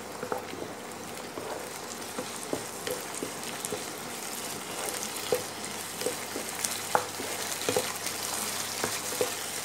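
Shallots, curry leaves and mutton sizzling in hot oil in a nonstick pan, stirred with a wooden spatula that clicks and scrapes against the pan at irregular moments.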